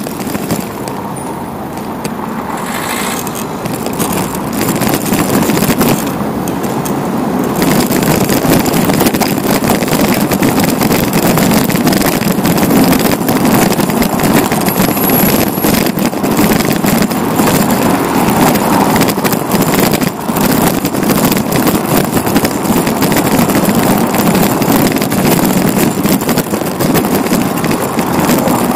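Riding noise of a bicycle rolling along city streets: a loud steady rumble of road and wind noise with many small knocks and rattles throughout.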